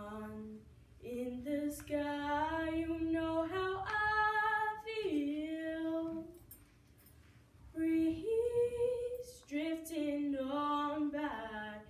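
A young woman singing solo and unaccompanied, two phrases of long held notes that slide between pitches, with a breath pause in the middle.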